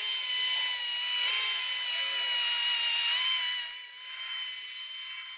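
Cordless drill spinning steadily with a high whine, driving a socket on a long extension to run a bolt in the intake manifold flange. It eases off a little about four seconds in and keeps turning more quietly.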